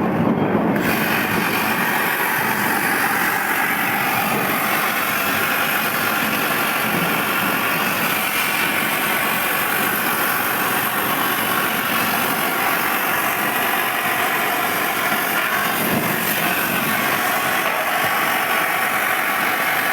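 CNC cutting machine running through a cut: a loud, steady noise with no clear pitch, which fills out in the upper range about a second in and then holds level.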